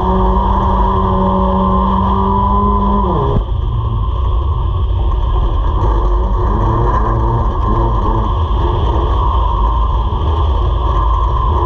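Race car engine heard from inside the cockpit, held at steady high revs, then dropping sharply about three seconds in. After that the revs rise and fall over and over in quick swells.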